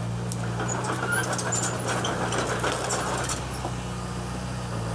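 Komatsu D20P bulldozer's diesel engine running steadily, with scattered short metallic clinks over it.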